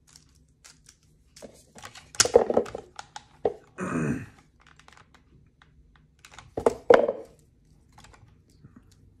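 Hands handling a 3x3 speed cube and a white cardboard box on a stone countertop: scattered clicks and rustles, with a short scrape about four seconds in and two louder bursts of handling noise about two and seven seconds in.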